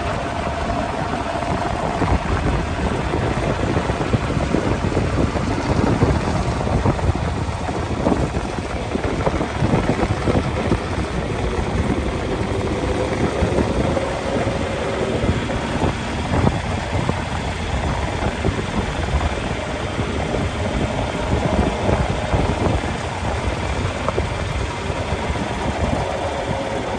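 Farm tractor engine running steadily as the tractor drives along a farm lane, heard from aboard the tractor close to the engine.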